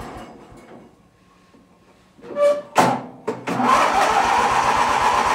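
Murray riding lawn mower's small engine being restarted: a short whine and two clunks a little over two seconds in, then the engine catches and runs steadily from about three and a half seconds in.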